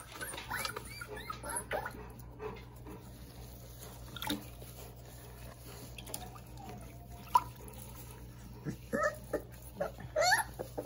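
Young puppy whining and whimpering in short, squeaky high cries, complaining at being bathed, with a denser run of cries near the end. A single short sharp click about seven seconds in.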